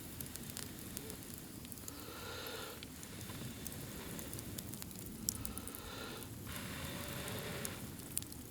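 Campfire crackling with scattered sharp pops, and a sirloin steak sizzling over the flames. The hiss swells twice.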